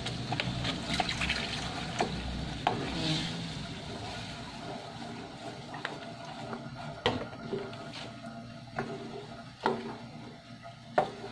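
Wooden spoon stirring thick spaghetti sauce in an aluminium wok, the liquid sloshing, with short knocks of the spoon against the pan now and then.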